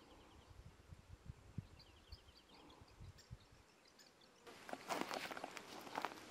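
A small bird's rapid trill of short, evenly spaced notes, heard twice over a low rumble of wind on the microphone. About four and a half seconds in, close rustling and clicking takes over, from clothing and gear being handled near the microphone.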